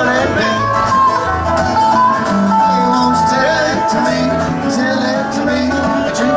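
A band playing country-style music on guitars and bass guitar, steady throughout.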